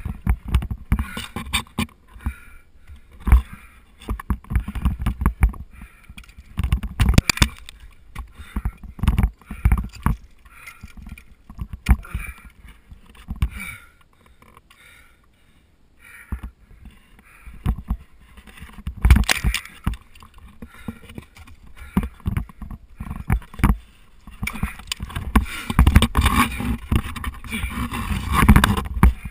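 Ice tools striking and biting into a frozen waterfall: irregular sharp thwacks with chips of ice, over a low rumble on the helmet-mounted camera. There is a lull about halfway through and a dense run of strikes near the end.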